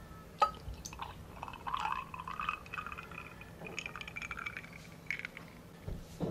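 Orange juice poured from a glass pitcher into a drinking glass, the pitch of the filling sound edging upward as the glass fills. A light clink about half a second in and a few small knocks of glass near the end.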